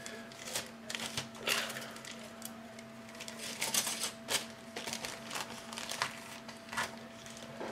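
Plastic model-kit sprues and their plastic bags being handled: irregular light clicks, taps and crinkles as parts are bagged and the next bag is taken out.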